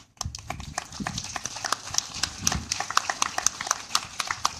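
Audience applauding: many separate hand claps, dense and irregular, starting just after the speaker is welcomed to the podium.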